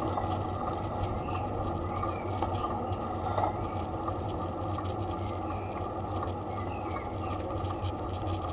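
Bicycle ride heard from a bike-mounted camera: a steady muffled rumble and rattle of tyres on the road, with a few faint short high squeaks now and then.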